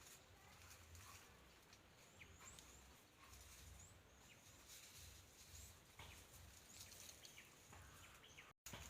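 Faint rural outdoor ambience with scattered short bird chirps over a low steady hum. The sound cuts out completely for a moment near the end.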